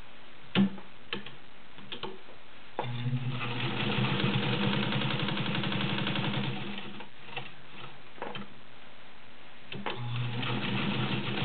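Universal class 15 clone straight-stitch sewing machine with a 1.2 amp motor, sewing through twelve layers of thin cotton in two runs of fast, even stitching. There are a few clicks of handling before the first run and in the pause between runs. Its bobbin case is loose and noisy even though it has been oiled.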